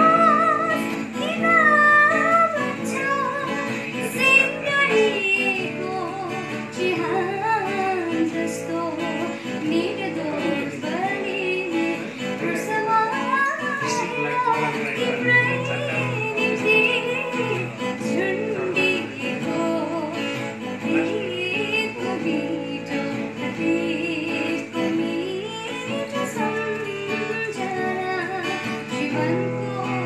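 A woman singing a song while accompanying herself on an acoustic guitar.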